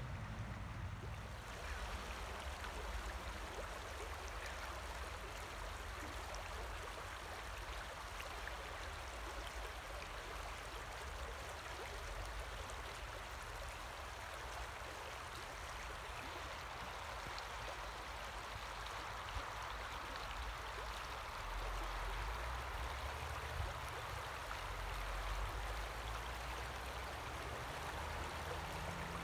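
River water running steadily, an even rushing sound with a low rumble underneath.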